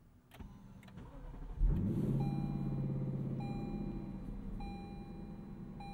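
Lexus LC500's V8 engine starting: it fires with a quick rev-up about a second and a half in, then settles to a steady idle. A chime beeps about once a second alongside it.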